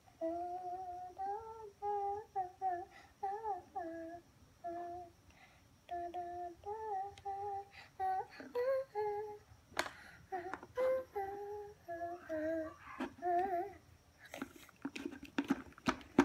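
A young child humming a wordless tune in short held notes that step up and down. A few light knocks and clicks come near the end.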